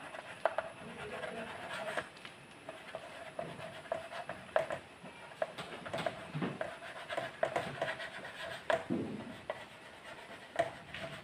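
Chalk writing on a chalkboard: a run of short, irregular scratching strokes and light taps as words are written out.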